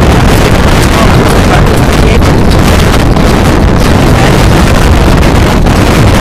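Strong wind blowing across the microphone: a loud, steady rush of noise with a heavy low rumble that buries everything else.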